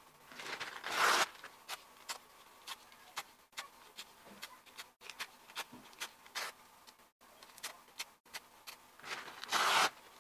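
Brown kraft paper torn by hand: two loud ripping tears, one about a second in and one near the end, with light paper rustling and small clicks in between.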